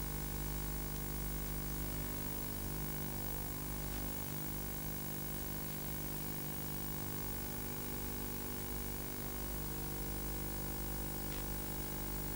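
Steady electrical hum with a hiss over it, no other sound standing out.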